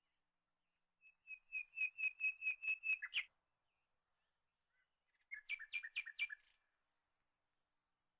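A bird singing in two phrases: a run of about ten quick, clear chirps at one steady pitch, about five a second, ending on a short falling note, then after a pause of about two seconds a shorter run of doubled chirps.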